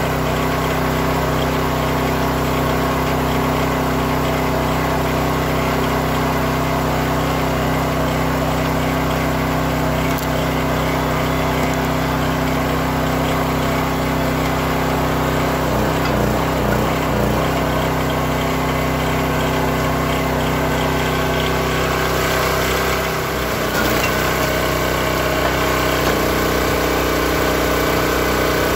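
Small gasoline engine of a hydraulic log splitter running steadily at speed. Its note wavers briefly a little past halfway and shifts again near the end, as the splitter is worked on a large round.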